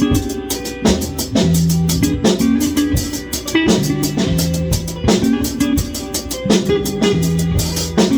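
Live instrumental rock jam: a drum kit keeping a steady beat, with guitar and bass guitar playing held notes underneath.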